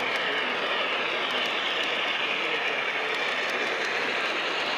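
Lionel Vision Line Niagara O-gauge model steam locomotive running past on its track: a steady rolling rumble of wheels and motor with faint light clicks.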